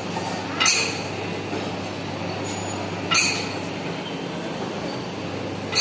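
Steady mechanical drone with a hum, and a sharp metallic clink about every two and a half seconds, three times.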